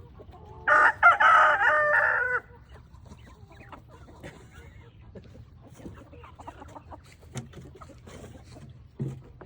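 A rooster crows once, loud and drawn out for nearly two seconds, followed by quieter clucking and scratching from the hens.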